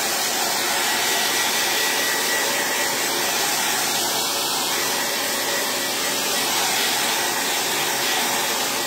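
Handheld hair dryer running steadily and loud: an even rush of air with a thin, steady high whine, blown over a thin coat of wax on a wooden cutting board.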